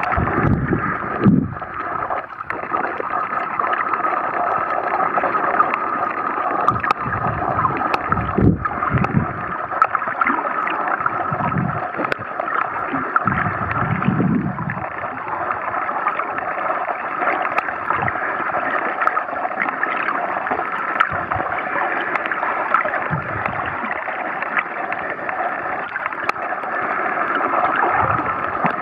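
Underwater water noise picked up by a submerged camera: a steady muffled hiss, with a few low whooshes of moving water and faint scattered clicks.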